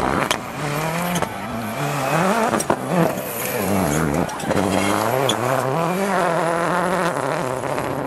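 Ford Focus RS WRC '07's turbocharged four-cylinder rally engine revving hard as the car slides past on loose gravel, its pitch rising and falling with throttle and gear changes, with a few sharp cracks.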